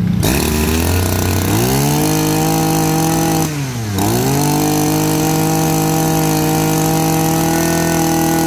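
Small handheld brush cutter engine revving up from idle and held at a steady high speed. The throttle is briefly let off and opened again about three and a half seconds in.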